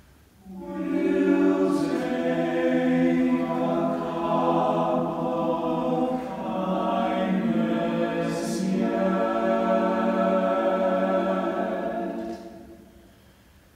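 A male a cappella ensemble singing one long, slow phrase together, entering about half a second in and dying away about a second before the end.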